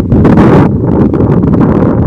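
Strong wind buffeting the microphone: a loud, low, rumbling roar that surges in gusts, the strongest about half a second in.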